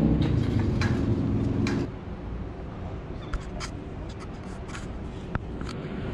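A steady low hum that cuts off about two seconds in, then scattered light clicks and crunches of people climbing a wire-mesh fence and moving crouched over loose construction gravel.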